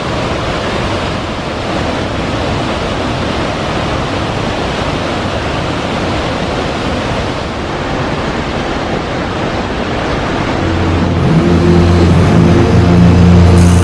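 Steady roar of water pouring over Victoria Falls, an even rushing noise. About eleven seconds in, music with low held notes fades in over it and grows louder.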